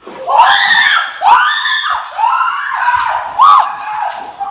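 Two girls screaming in fright, a run of about five loud, shrill shrieks starting suddenly, as a rodent darts out from under a pallet they have lifted.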